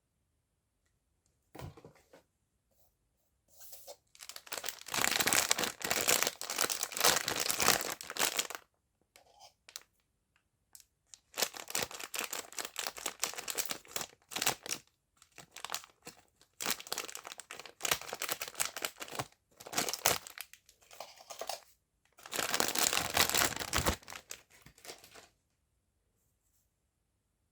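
Packaging being torn open and crinkled by hand, in four main bursts of a few seconds each with short pauses and smaller rustles between them.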